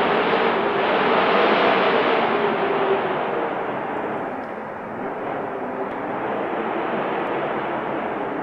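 Wind blowing in a steady rush that is stronger for the first few seconds, then eases off slightly and holds.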